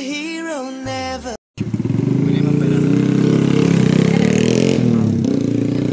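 Background music with singing breaks off about a second and a half in. After that, a loud, steady, low engine rumble takes over.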